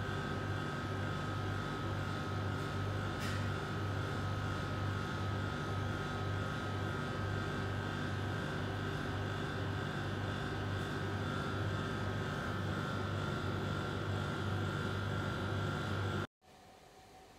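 Steady mechanical hum: a low drone with a thin high whine over it, unchanging throughout. It cuts off suddenly near the end, leaving a much quieter background.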